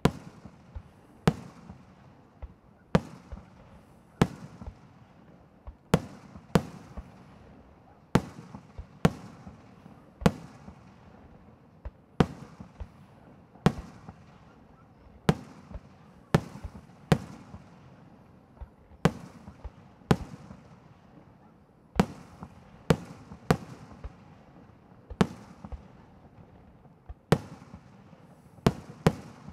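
Professional fireworks display: aerial shells bursting with sharp bangs at roughly one a second, irregularly spaced, each trailing a short echo, with smaller pops between.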